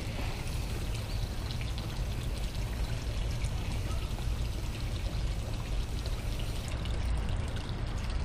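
Steady trickling, pouring water with fine crackles and a low rumble underneath.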